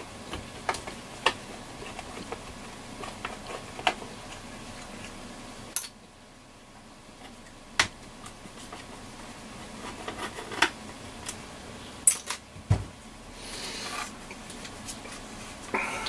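Irregular small clicks and clinks of a screwdriver working on the screws and metal chassis parts of a Hacker Super Sovereign transistor radio as its faceplate and top panel are loosened, with a dull knock followed by a brief rustle late on.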